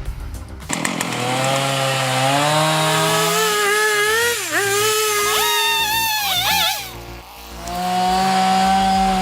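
Chainsaw engine revving, its pitch climbing steadily over about three seconds, then dipping sharply and recovering twice. It cuts out about seven seconds in, then comes back running at a steady, lower pitch.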